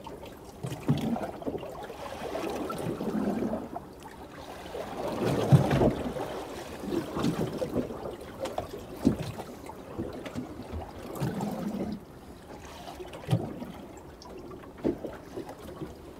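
Choppy sea slapping and sloshing against the hull of a small drifting boat in irregular surges, with a few short knocks.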